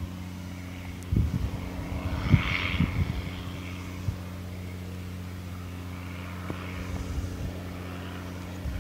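Diesel engines generating electricity, running with a steady low hum. A few irregular low thumps between about one and three seconds in.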